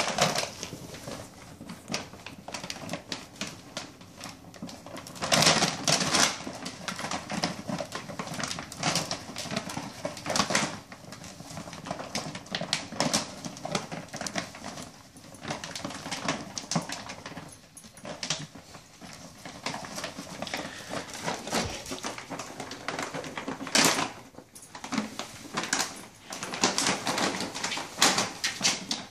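Large plastic dog food bag crinkling and rustling in irregular crackling bursts as a dog rummages inside it with its head buried, louder surges coming with its bigger shoves.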